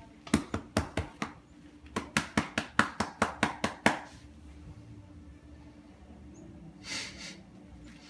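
A hand patting a cat's back and rump in quick, even pats, about five a second, in two runs that stop about four seconds in. A short rustling burst near the end.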